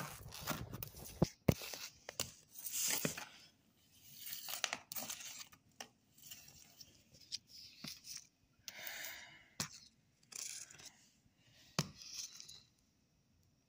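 Paper photo prints being torn and handled on a wooden table: repeated short bursts of ripping and rustling with a few sharp taps, stopping near the end.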